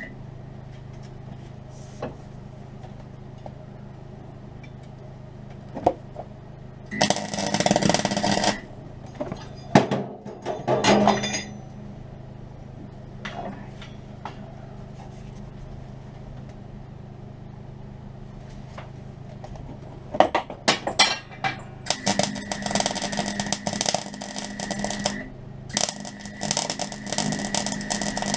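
Metal parts clinking and scraping on a workbench over a steady background hum, then long spells of crackling arc welding near the end, with a short burst of it about seven seconds in, as bracing pieces are welded onto a gearbox mount bracket.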